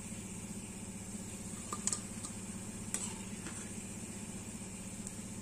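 Deep-fried cauliflower 65 pieces sizzling softly in hot oil as they are scooped out with a perforated steel skimmer, with a few light metal clicks of the skimmer against the pan, over a steady low hum.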